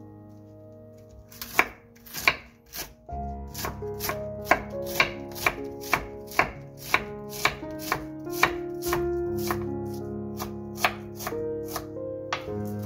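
Knife slicing a raw cabbage head into thin shreds on a wooden cutting board: crisp cuts, a few loud ones early, then a steady run of about two a second. Background music plays underneath.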